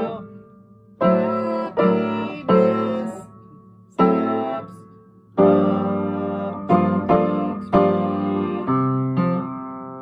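Upright piano played solo: chords struck and left ringing as they die away. There is a short pause near the start and another about halfway through, then the chords come closer together in the second half.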